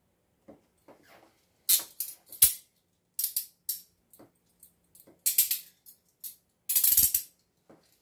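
Hiatt Peerless steel handcuffs being closed onto the wrists: quick runs of ratcheting clicks as the bows pass the pawl, with the swivel chain jingling. It comes in several bursts, the longest and loudest near the end.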